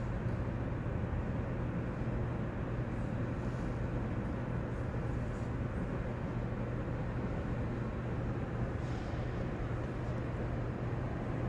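Steady room tone of a large church interior: a constant low hum under a wash of background noise, with a few faint ticks.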